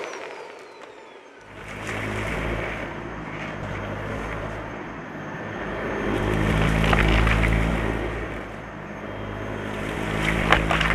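Dyson Light Ball vacuum cleaner starting up about a second and a half in and running steadily, swelling louder in the middle, with a few sharp crackles of crunchy debris being sucked up, the clearest near the end.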